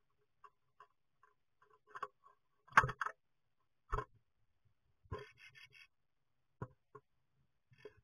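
A great tit's claws scratching and knocking on the wooden walls and floor of a nest box as it moves about and clambers up the side: a few sharp knocks, the loudest about three seconds in, and a short scrabbling run a little after five seconds, heard close up in the small box.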